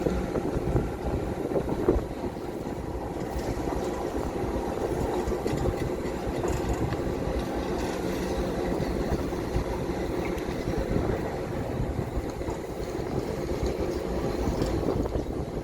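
An engine running steadily, heard as a continuous low drone.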